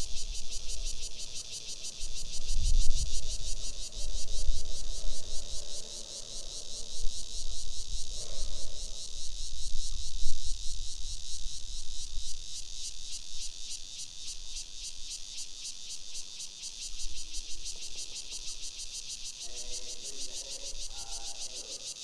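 Insects chirring steadily in fast, even pulses, with low rumbles coming and going in the first half. A faint distant voice or music enters near the end.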